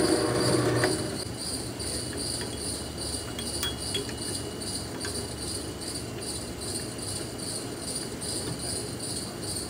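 Drill press motor running and shutting off about a second in. Then a steady rhythmic insect chirping at about two pulses a second, with a few light metal clicks as a part is handled in the press.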